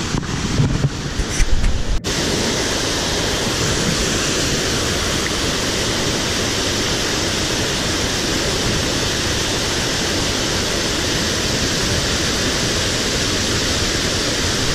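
Steady rush of a small waterfall on a mountain stream close by. For the first two seconds, water splashes and sloshes around a hand in the shallows, ending in an abrupt cut.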